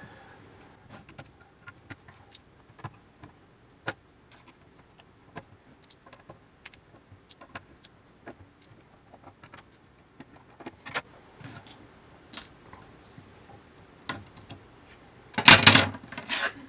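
Scattered small clicks and taps of hand disassembly as the backlit perspex front panel of an aircraft control box is taken apart, with a loud clatter of parts near the end.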